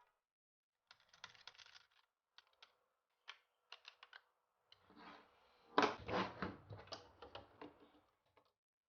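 Small clicks and rattles of computer hardware being handled during assembly, with a louder stretch of clattering and scraping about six seconds in.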